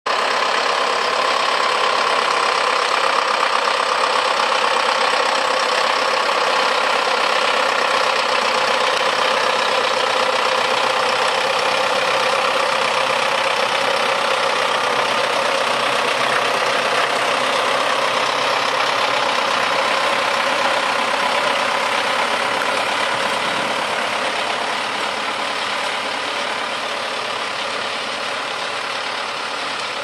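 Zetor 9641 tractor's four-cylinder diesel engine running steadily under load while pulling a four-furrow plough through the soil. It gets a little quieter over the last several seconds.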